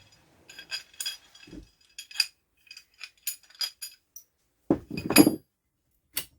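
Small metal parts and hand tools clinking and clattering at irregular intervals as a UTV's primary drive clutch is taken apart, with a louder, heavier clatter about five seconds in.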